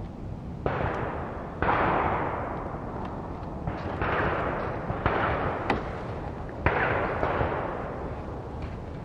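Several distant shotgun shots from a clay-shooting range, about five in all, each starting sharply and rolling away in an echo that lasts about a second.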